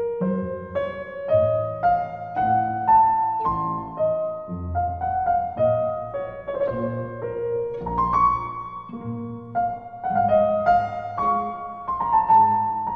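Piano music: a flowing melody of single notes over low bass notes, a new note about every half second.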